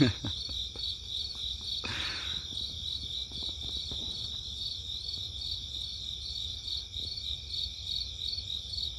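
Crickets chirping in a steady chorus, a fast pulsing high trill that runs on without a break.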